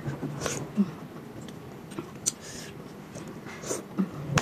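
Close-up eating sounds: wet lip smacks and chewing on soft pieces of papaya dipped in sambal, with a few short sharp clicks scattered through.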